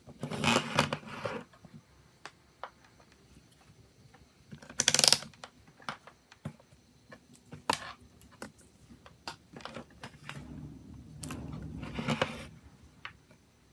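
Small parts and hand tools handled while working on a mobile phone: scattered light clicks and taps, with three short bursts of rubbing, the first at the start, one about five seconds in, and a longer one near the end.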